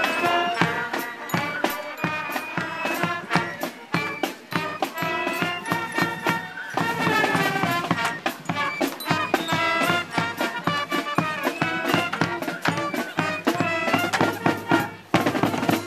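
Marching band playing an upbeat tune with a steady drumbeat.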